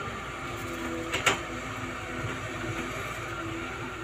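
Tracked hydraulic excavator's diesel engine running steadily as it digs and swings its bucket, with one sharp knock a little over a second in.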